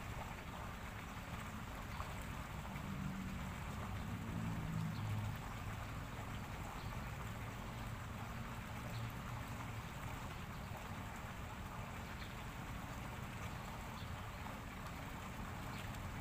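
Steady water-like hiss at a fish pond, with a low rumble that swells about three to five seconds in.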